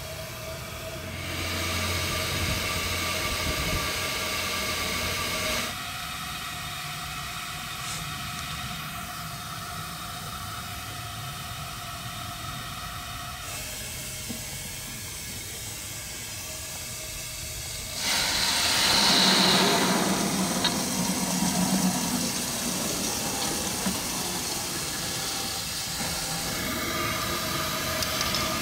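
Steady hiss with a faint steady whine from a 7.5-inch gauge live steam locomotive being fired up. The sound changes abruptly several times, with a louder rush of hiss about eighteen seconds in.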